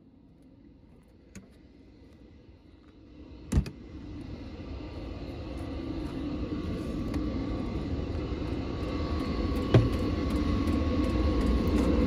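An 8 kW Chinese diesel air heater running full bore, its fan and burner noise coming up as a steady rush with a low hum that grows gradually louder from about four seconds in. A single sharp thump comes just before the rise.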